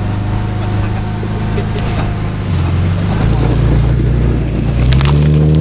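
Rock crawler engine running under load. Its pitch drops about two and a half seconds in, then it revs up near the end, with a few sharp knocks just before.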